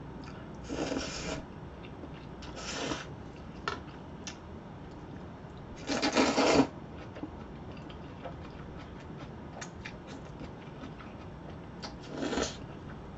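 A person slurping black bean noodles (jjajangmyeon) in short noisy pulls, four times, the loudest about six seconds in. Faint clicks of chopsticks and chewing come in between.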